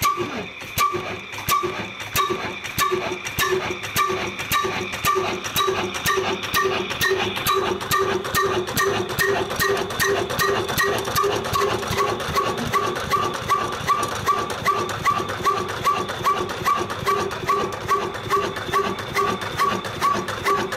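Old Ruston & Hornsby 22 HP horizontal diesel engine just started, firing in slow, even exhaust beats. The beats quicken over the first several seconds as the engine gathers speed, then settle into a steady rhythm of about two a second.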